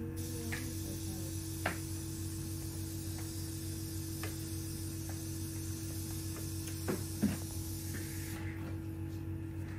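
Steady electrical mains hum with a few faint scattered clicks, two of them close together about seven seconds in.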